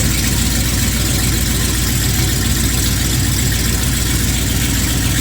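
Ford C600 truck's engine, converted to Holley Sniper fuel injection, running steadily at idle after a no-start.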